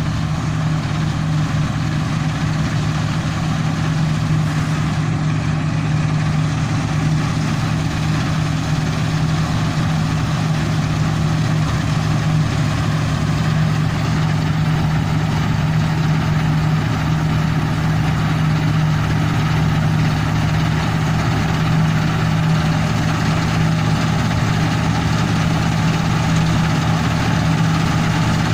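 Fortschritt E 512 combine harvester running steadily during harvest, its diesel engine and working machinery giving a loud, even, deep hum with no change in speed.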